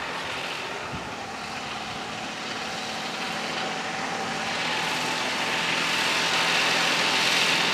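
Light propeller aircraft engine running steadily, growing louder near the end.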